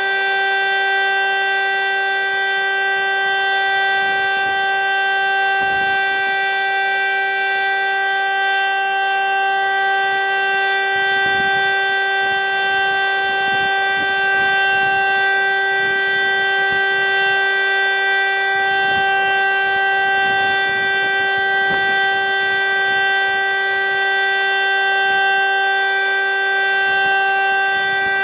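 VEM DS977 electric motor siren sounding a continuous, steady tone at one unchanging pitch: the 'Zkouška sirén' siren-test signal.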